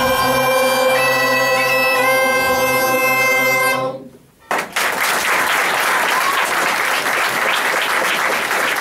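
Gaita (Galician bagpipe) and choir hold the closing notes over the pipe's steady drone, the melody stepping up twice before cutting off about four seconds in. After a brief silence the audience breaks into applause.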